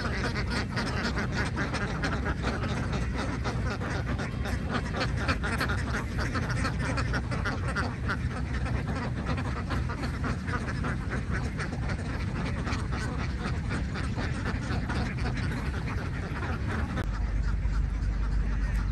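A large flock of domestic ducks quacking continuously, many calls overlapping into a steady chorus. A low rumble grows louder near the end.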